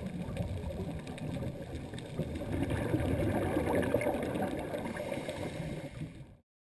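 Muffled underwater noise from a scuba dive, heard through a GoPro Hero2's waterproof housing. It is steady and low-pitched, a little louder in the middle, and cuts off suddenly near the end.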